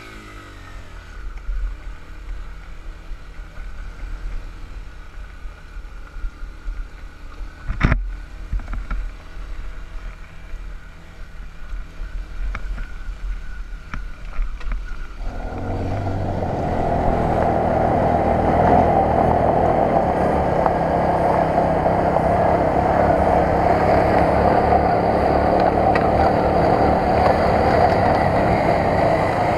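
Yamaha YBR125's 125 cc single-cylinder four-stroke engine running under a rider on a rocky dirt climb, with wind and ground noise. One sharp knock about eight seconds in. From about halfway the sound gets much louder and stays steady as the bike picks up speed up the trail.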